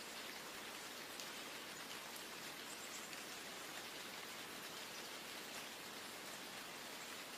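Steady rainfall: an even hiss with a faint patter of drops.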